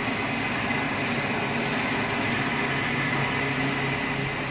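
Steady hum and noise of running machinery, with a faint high whine that fades out over the first two seconds and a few faint clicks.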